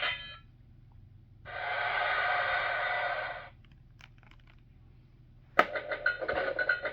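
The Fisher-Price Magic Castle toy plays electronic sound effects through its small speaker: a burst of recorded crowd cheering lasting about two seconds, then a few faint clicks. A sharp click near the end sets off a new pulsing electronic toy sound.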